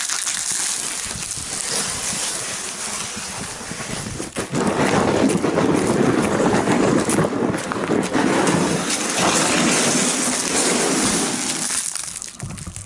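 A large cardboard box wrapped in plastic stretch film being handled and moved: the plastic crinkling and the cardboard scraping. The sound gets louder and denser from about four and a half seconds in.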